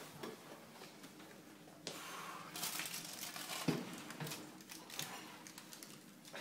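Faint rustling and handling at a kitchen oven: a stretch of rustling about two seconds in, then a light knock and a few small ticks.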